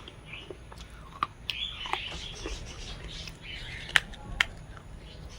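Someone biting and chewing crunchy clay: sharp cracks as it breaks, the two loudest a little before four and a half seconds in, with softer crunching between.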